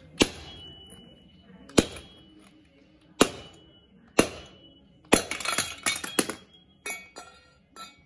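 Sharp metallic knocks, four single blows a second or so apart, then a quick flurry of hits and a few lighter ones, each with a short high ring. They come from a washing machine's steel drive shaft and its spider being knocked apart to free the shaft.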